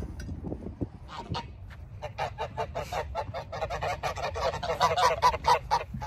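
A flock of domestic geese honking, many short calls in quick succession overlapping one another, starting about a second in and growing louder toward the end.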